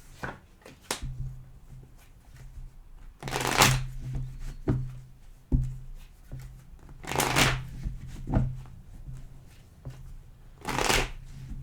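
A deck of tarot cards being shuffled by hand: three longer riffling bursts about three and a half seconds apart, with short sharp taps and clicks of the cards between them, over a faint low hum.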